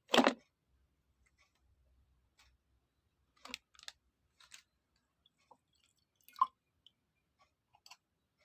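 Scattered short clicks and knocks of kitchen handling as ingredients for a drink are put into a glass: a sharp knock just after the start, a few softer clicks around the middle, and another sharp one about six seconds in.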